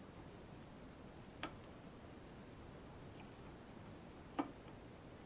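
Two faint metallic clicks, about a second and a half in and again near the end, as a piston ring is worked onto a piston by hand.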